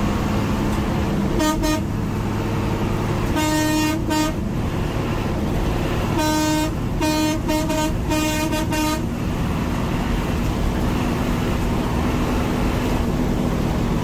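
A bus horn honking in short toots: a quick double toot, then a longer one, then a run of several toots, as the bus overtakes a truck. Steady engine and road noise inside the bus's cab runs underneath.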